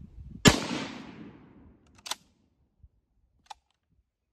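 One shot from a Swiss M1911 infantry rifle in 7.5×55mm Swiss, a sharp crack about half a second in that echoes away over about a second and a half. It is followed by a couple of sharp metallic clicks from the straight-pull bolt being worked.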